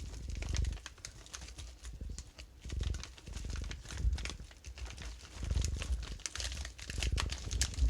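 Plastic bag crinkling and rustling, with irregular small clicks and dull bumps, as fingers work at the twist tie closing it.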